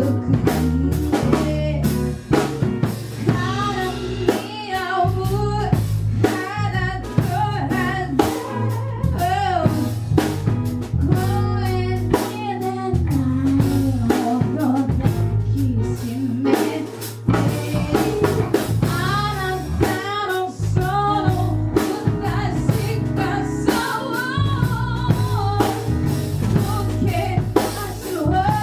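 A song: a singing voice with vibrato over a drum kit and band backing, with a steady beat throughout.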